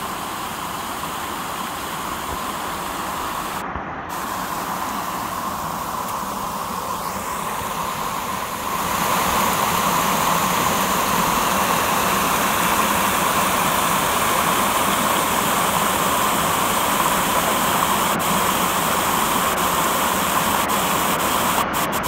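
Heavy flow of water pouring out of a drain's exit pipe and cascading down a stream channel as a steady whitewater rush, swollen by high water after heavy rain. It grows louder about nine seconds in.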